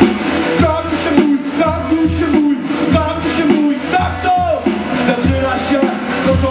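Live rock band: a man singing loudly into a microphone over electric guitar, with a steady beat about twice a second.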